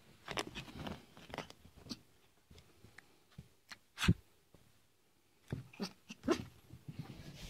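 A Yorkshire terrier making brief, scattered noises up close, including mouthing or chewing sounds, with one sharper, louder sound about four seconds in.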